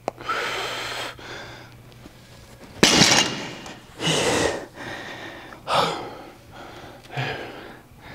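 A man breathing hard from heavy barbell exertion: about five forceful breaths, the loudest with a sudden start about three seconds in.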